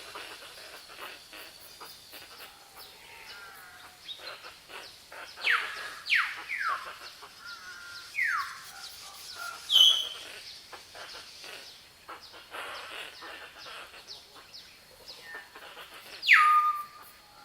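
Forest ambience of wild birds calling: a background of many short chirps and ticks, broken by several loud whistles that slide steeply down in pitch, the last one ending on a held note, and a sharp high call about two-thirds of the way through.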